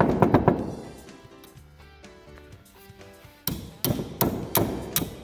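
Hammer striking the steel clevis pin of a tractor brake linkage to drive it home. There is a quick run of sharp metallic strikes at the start, a pause, and then about five more strikes at roughly three a second.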